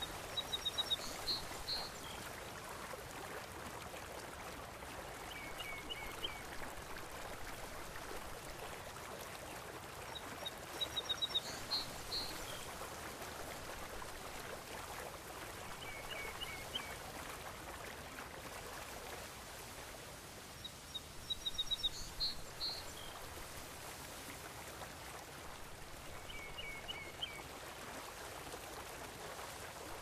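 Steady wash of the open sea with short bird calls, a quick run of chirps about every five seconds, alternating between a higher and a lower call.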